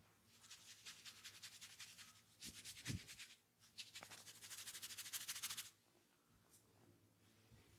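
Quiet, fast rhythmic rubbing and scratching of hands on hair and scalp, as in a vigorous head massage, stopping a little past halfway, with one dull thump about three seconds in.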